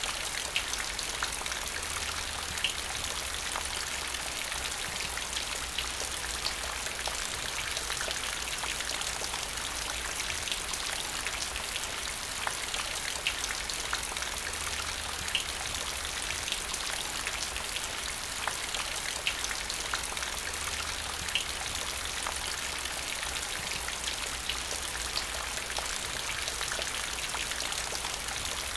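Steady rain falling into a puddle: an even hiss with individual drops landing as scattered sharp clicks.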